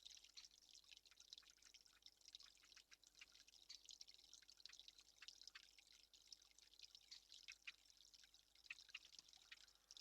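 Faint, irregular patter of water drops falling.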